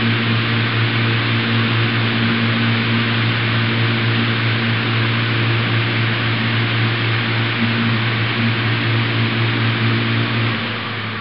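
Loud, steady machine drone: a low hum with a second hum above it under a strong hiss, easing off near the end.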